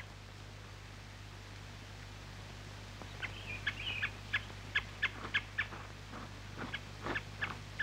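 Bird chirping in short, high notes, a few a second, starting about three seconds in, over the steady low hum of an old film soundtrack.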